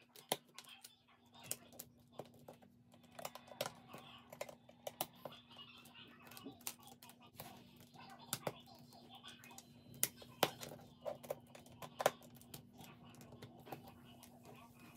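Lego plastic pieces clicking and tapping as long plates are laid on and pressed into place by hand, with fingernails ticking on the plastic. The clicks come irregularly, a few sharper ones standing out, over a faint steady hum.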